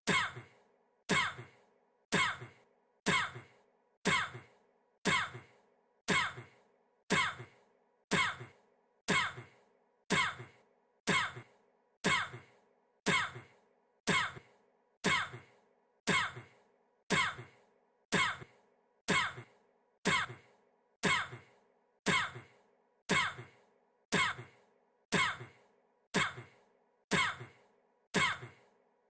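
A man's single short cough, the same clip repeated over and over at an even pace of about one cough a second.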